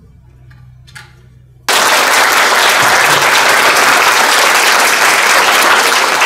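Audience applauding, starting abruptly just under two seconds in after a quiet pause with a low hum, then dense, steady clapping.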